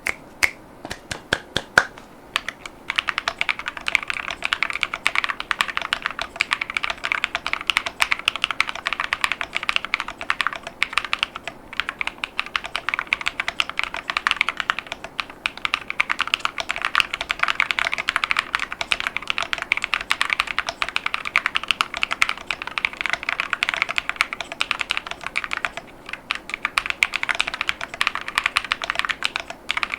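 Typing on an Epomaker Tide75 mechanical keyboard with Akko V3 Creamy Blue tactile switches and dye-sub PBT MAO-profile keycaps. A few separate keystrokes come first, then steady fast typing from about three seconds in, with a couple of brief pauses.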